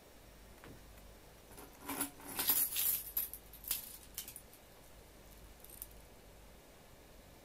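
A small metal keychain-style trinket jingling and clinking as it is picked up and handled, for about two and a half seconds, with one more faint click a little later.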